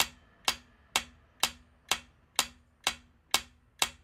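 Clock-ticking countdown sound effect for a quiz timer: sharp, even ticks, about two a second.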